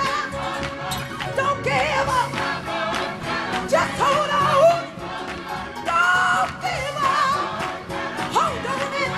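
Gospel choir singing with a live band, full-voiced sung phrases rising and falling over a steady beat.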